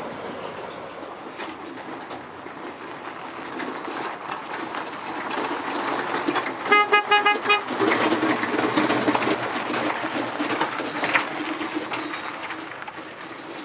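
Rail wagons rolling past, then, about seven seconds in, a small electric vehicle horn beeped in a quick run of about seven short toots, likely from one of the electric platform tugs.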